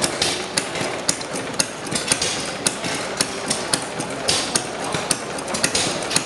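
Model of Henry Ford's 1893 Kitchen Sink engine, a single-cylinder engine, running slowly with a sharp pop on each firing, about twice a second, over a steady mechanical clatter.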